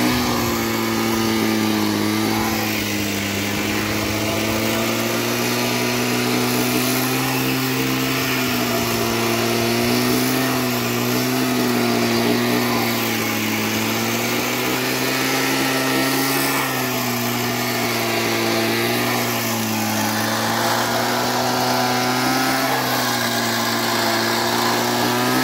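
Small backpack engine of a mini tea plucking machine running steadily while the cutter is worked across tea bushes; its pitch wavers slightly up and down.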